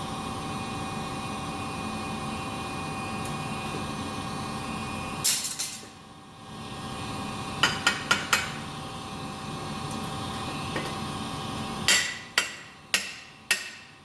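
Hammer blows on a steel pipe driver, driving a forge-heated collar onto a feed grinder's input drive shaft as a shrink fit: one blow about five seconds in, a quick run of four around eight seconds, then a steady series of blows about every half second near the end. A steady background hum runs under the first part and stops as the last series of blows begins.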